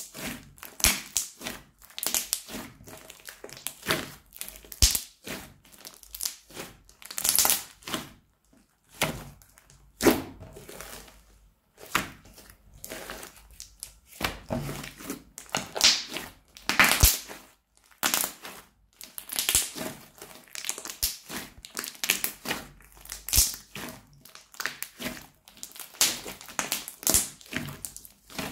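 Blue crunchy fluffy slime, dotted with small plastic bits, being squeezed and kneaded by hand, giving dense crackling and sharp popping clicks in uneven bursts with each squeeze.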